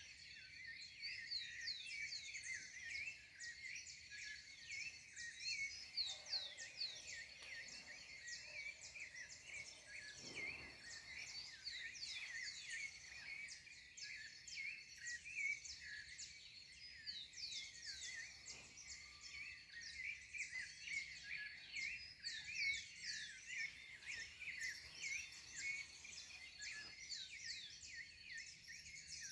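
Dawn chorus: many birds chirping and twittering at once in quick, overlapping high calls, with a thin steady high tone running beneath them.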